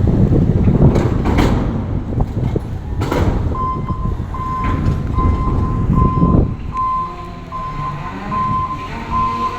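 Vehicle reversing alarm sounding a steady series of short, evenly spaced high beeps, starting about three and a half seconds in. Under it is a loud low rumble, from wind on the microphone or a nearby engine, that dies down after about six seconds.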